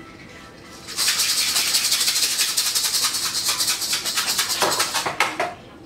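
Whole coffee beans rattling in a container, a rapid maraca-like rattle of many small impacts that starts about a second in and stops after roughly four seconds.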